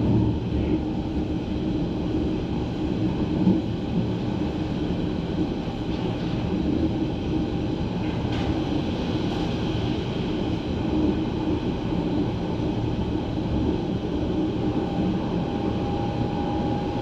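Berlin S-Bahn class 481 electric train running along the track, heard on board as a steady rumble of wheels and running gear. A faint whine comes in near the end.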